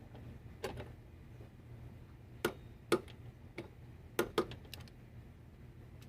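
Hand torque wrench set to 35 foot-pounds tightening a bolt, giving a series of about seven sharp, irregularly spaced clicks, some in quick pairs.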